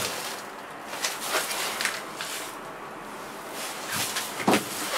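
Faint rustling and handling noises, a few short scrapes and rustles as a hand moves over a fabric tool bag and the plastic wrapping on a seat.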